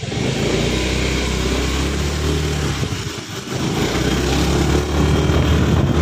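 Two-wheeler's engine running steadily as it is ridden, with a dip around three seconds in as it slows to turn. Rushing wind and road noise from the ride lie over it.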